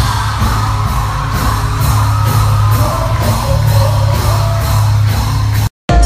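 Loud live band music with singing over heavy bass and a steady drum beat, with yells and whoops from the crowd, captured on a phone microphone. The sound drops out for an instant near the end at a cut between clips.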